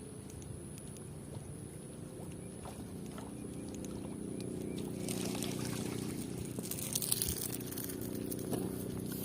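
A boat motor hums steadily, with water splashing and sloshing that grows louder from about halfway through.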